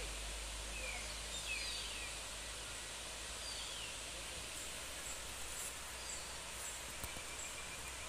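Forest ambience: the steady rushing hiss of a distant waterfall, with a bird repeating a short falling whistle every second or two and a thin high insect buzz.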